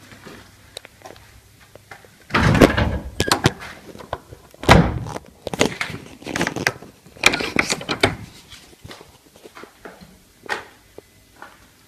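A door being banged and slammed: a rush of loud heavy thuds and sharp knocks beginning about two seconds in and going on for some six seconds, then a few fainter knocks.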